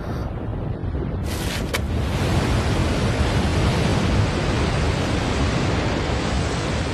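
Anime sound effect of a surging magical aura: a dense, rushing rumble that swells a little over a second in and then holds steady.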